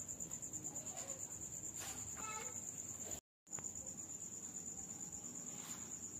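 A high-pitched insect trill, a steady chirp pulsing several times a second, typical of a cricket, breaking off for a moment about three seconds in. Faint handling noise and a light knock lie underneath.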